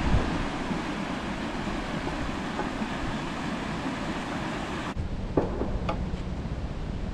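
Steady rush of water pouring through the weir channel beside a river lock, which cuts off suddenly about five seconds in. After that it is quieter, with a couple of light knocks.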